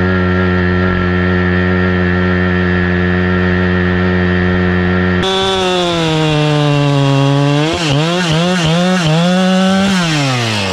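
Chainsaw at a steady high speed, then suddenly switching to cutting through the log. The engine speed sags under load and surges up and down several times, then falls away as the throttle is released near the end.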